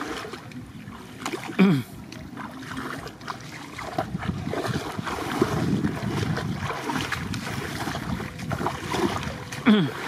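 Splashing of legs wading through shin-deep floodwater, the water sloshing with each step. There are two short louder sounds that fall in pitch, one about a second and a half in and one near the end.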